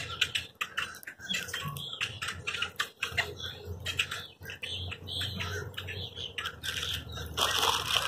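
A flock of grackles calling, a dense, irregular stream of short clicks and chuck notes. Near the end a louder broad rush of noise rises over the calls.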